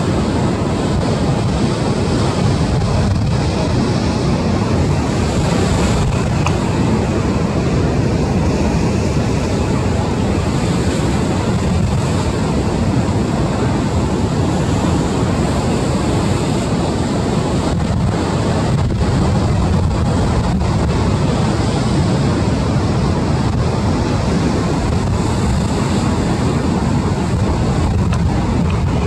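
Wind buffeting the microphone over the steady wash of rough surf from a storm swell, a constant noise with a heavy low rumble and no breaks.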